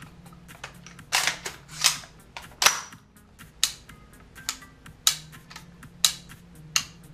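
Metal clicks and clacks of a DPMS LR308 rifle's action and controls being worked by hand. A longer scraping clack comes about a second in, and the loudest clack, with a short ring, about two and a half seconds in. Then come sharp single clicks, roughly one a second.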